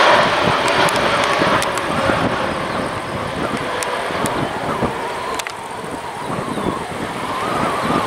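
Airbus A320 jet engines at takeoff thrust during the takeoff roll: a loud, steady rush with a faint whining tone that drops slightly in pitch in the first second or so as the aircraft passes. Wind rumbles on the microphone.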